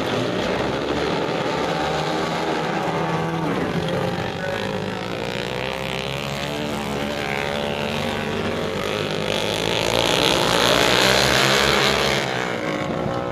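Several dirt-track racing motorcycles running at speed around a dirt oval, their engines revving and changing pitch through the laps. The sound grows louder and brighter near the end, then drops back.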